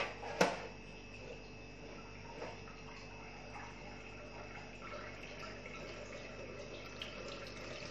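A sharp knock about half a second in, then whey trickling and dripping from a muslin cloth bundle of split milk into a stainless steel strainer as the curds are drained.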